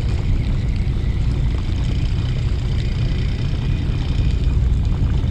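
A fishing boat's engine running steadily, a low drone.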